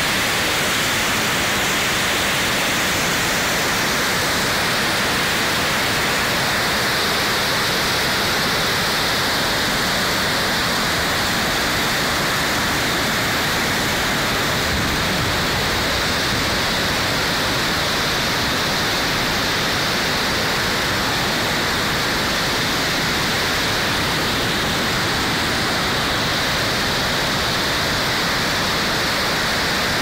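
A swollen waterfall and its cascades: heavy, muddy water pouring over rock and churning in a steady, unbroken rush.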